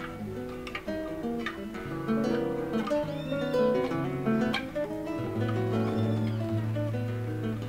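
Nylon-string classical guitar played fingerstyle: a plucked melody over held bass notes, with two brief squeaks of fingers sliding along the wound strings.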